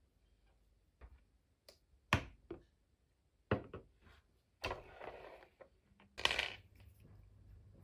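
Objects being handled: a series of sharp knocks and clatters, two brief noisy scrapes with the louder one near the end, then a faint steady low hum starting.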